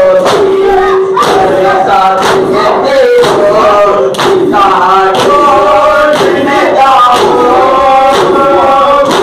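A crowd of men chanting a noha in unison, with the steady rhythmic slaps of hands beating on chests (matam) keeping time, a little less than one beat a second.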